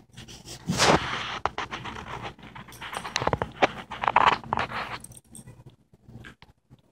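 Two dogs, a springer spaniel puppy and a cockapoo, wrestling on a hardwood floor: their claws and paws scrabble, tap and scrape on the boards in quick clicks and scuffles. It is busiest in the first five seconds, then dies down to scattered taps.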